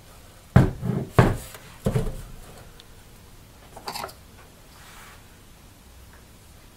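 A heavy (about 5–6 lb) MorningStar TriStar MPPT 60 solar charge controller with a finned metal heat sink set down on a wooden workbench: three knocks in quick succession, then a lighter click about four seconds in.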